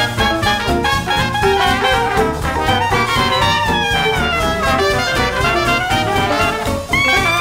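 Jazz music with brass instruments over a steady bass line, with a few falling slides in the horns midway and new held notes coming in near the end.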